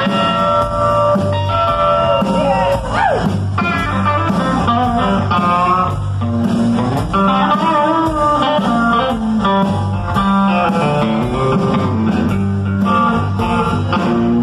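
Live blues-rock band playing an instrumental break: electric guitar lead with sustained and bent notes over bass and drums.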